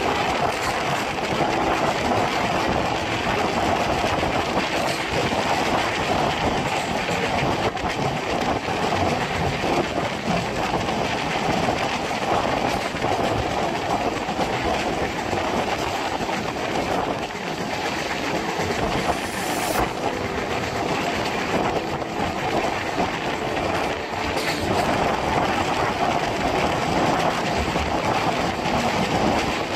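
22692 Bangalore Rajdhani Express train running on the rails: a steady rolling clatter of wheels and coaches.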